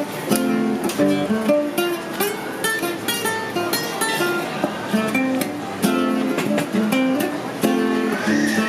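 Music: a strummed and plucked ukulele or guitar playing a rhythmic chord pattern.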